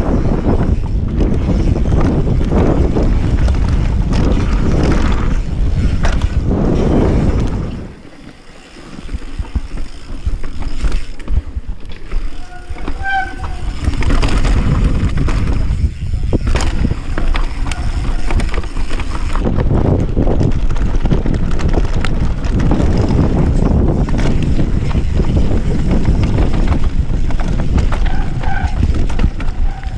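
Wind buffeting an action camera's microphone and a mountain bike's tyres rolling over dirt and rocks on a fast downhill ride, with rattling from the bike. The noise dips briefly about a quarter of the way in, then comes back.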